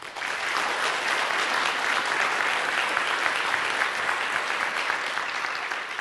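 Audience applauding: many hands clapping in a dense, steady wash that starts abruptly, the moment the talk ends.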